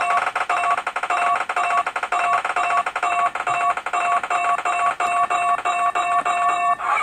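Electronic ticking beeps from an online random name picker, several a second, as it shuffles names to draw a winner; they stop near the end when the name lands.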